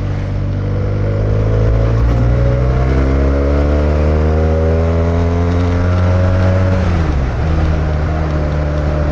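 Benelli motorcycle engine accelerating, its note rising steadily for about seven seconds, then dropping sharply as the throttle closes or a gear is changed, and running steadily after. The sound is heard through a microphone inside the rider's helmet, with a steady rush of wind and road noise behind it.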